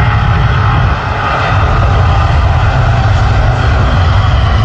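Jet engines of a widebody airliner at high power on its takeoff run: a loud, steady noise with a heavy deep rumble underneath.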